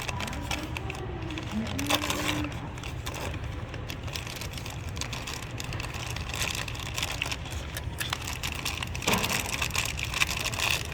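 Plastic packaging crinkling and rustling as it is handled and opened, in a long run of small crackles.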